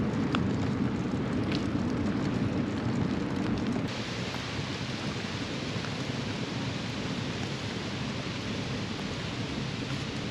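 Steady rushing noise from riding a recumbent bicycle: wind on the camera microphone and tyres rolling on the path. About four seconds in the noise changes, losing some of its low rumble and turning hissier.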